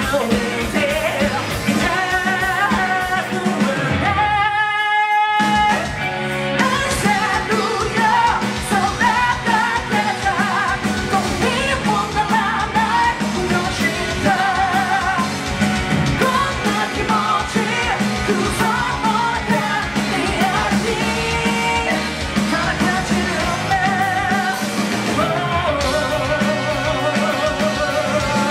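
Live rock band playing with drums, bass and guitar under a lead vocal. About four seconds in, the band stops and a single held note sounds alone for about a second and a half before the full band comes back in.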